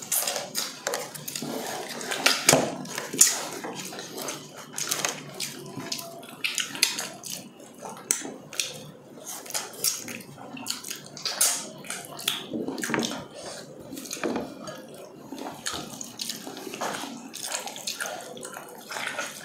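Close-up eating sounds: wet chewing, lip smacking and sucking as meat is eaten off the bone by hand, a dense run of small clicks and smacks.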